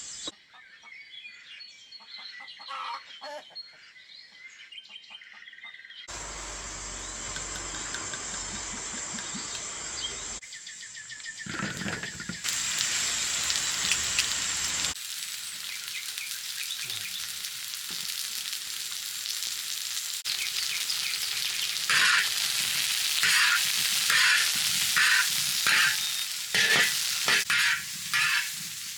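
Birds chirping faintly, then food sizzling in a hot pan. Near the end a utensil stirs and scrapes through it about once a second.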